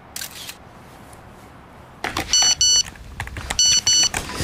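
Mobile phone message alert: two pairs of short high beeps about a second apart, signalling an incoming picture message.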